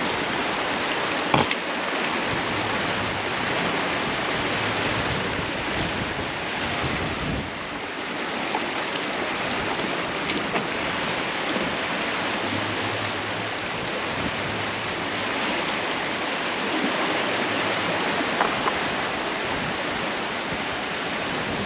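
Fast, churning river water rushing below a dam, a steady even roar, with a brief click about a second and a half in.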